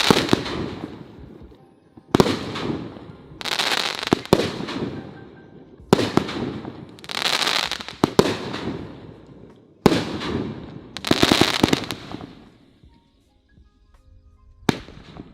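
A Brothers Going, Going, Gone 28-shot 500-gram consumer firework cake firing: a shot every second or two, each a sharp bang followed by a long fizzing crackle tail from its delayed-crackle effect. The shots stop a little before the end.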